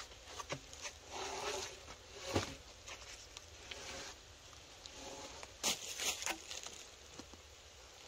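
Irregular rustling and crunching of dry material, with scattered light clicks and a sharper knock about two and a half seconds in.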